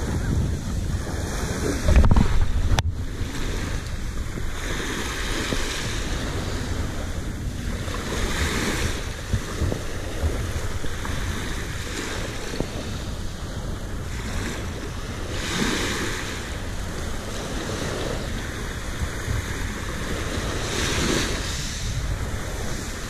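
Small waves breaking and washing over a fine-gravel beach, surging again every few seconds, with wind rumbling on the microphone, strongest in the first couple of seconds.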